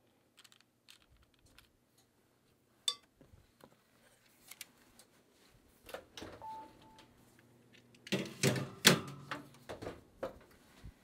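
Metal spoons clicking as batter is dropped onto a parchment-lined sheet pan, then an oven door opening and the metal sheet pan clattering onto the oven rack in a quick run of loud knocks near the end.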